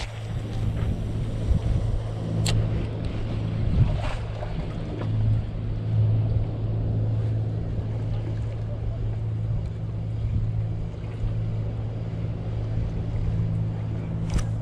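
Steady low hum of a boat engine running, over wind and water noise, with a few sharp clicks as a spinning reel and rod are handled.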